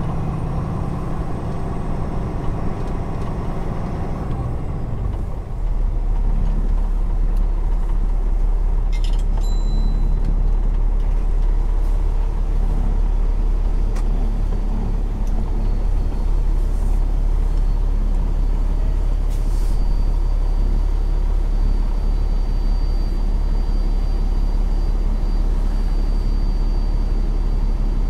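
Cummins ISX15 diesel of a Peterbilt 389 truck running at low speed, a deep steady rumble that grows louder about five seconds in. A brief hiss about nine seconds in, and another near twenty seconds.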